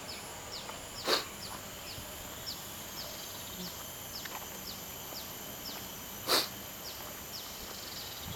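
Outdoor ambience of animal calls: a high, steady drone under short falling chirps repeated about twice a second, with two short, louder calls, one about a second in and one about six seconds in.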